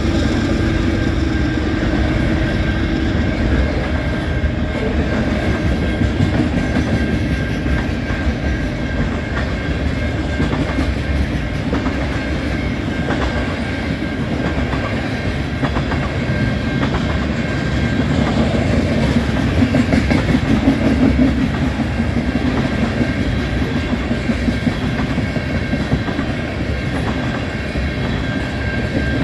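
Freight cars of a long train rolling steadily past on steel wheels, with a continuous rumble that swells briefly about two-thirds of the way through.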